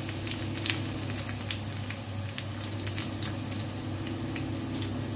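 Potato pieces frying in hot oil in a frying pan: a steady sizzle with scattered small pops and crackles, over a steady low hum.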